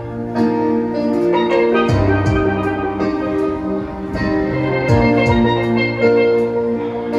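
Steel pan played by hand with mallets, a ringing melody of held notes, with bass notes and a few drum beats underneath.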